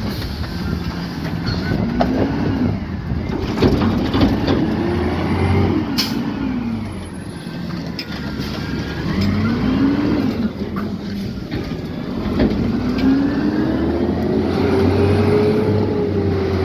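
Peterbilt 520 refuse truck with a Rapid Rail automated side-loader: the engine revs up and settles back several times as it drives the hydraulic arm, with a long rev up near the end. There are a few sharp knocks and clatters in between.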